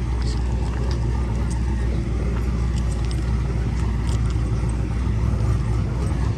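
Car engine idling nearby, a steady low rumble.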